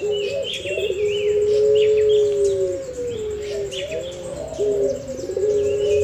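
Pelung puter (collared dove) cooing in long, drawn-out, steady low notes that fall away at the end. The first coo ends about three seconds in and the next begins about five seconds in. Higher up, small birds give short falling chirps.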